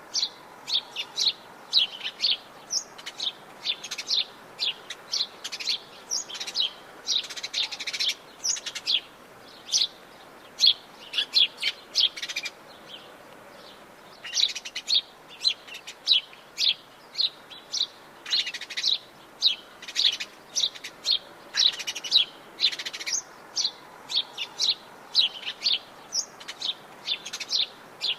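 A chorus of Atlantic Forest birds chirping and calling, with many short, quick high chirps overlapping, a brief lull about halfway through, then the chirping picks up again.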